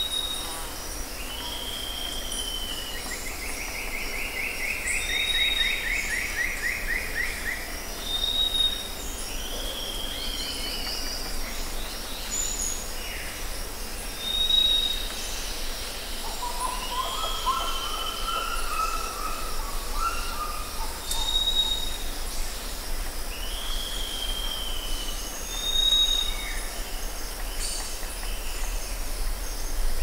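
Rainforest birds and insects: a short high whistle repeats every few seconds, alternating with an arched call, over a steady high insect drone. A long falling trill starts about three seconds in, and a lower warbling call comes in the middle.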